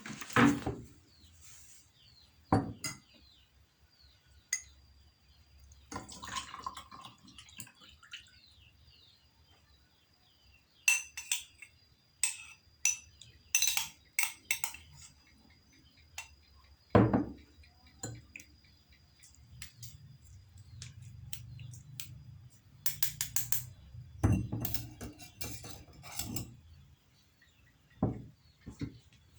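Kitchen utensils and dishes clinking and knocking: scattered sharp clinks, two runs of quick clinks, and a few heavier knocks.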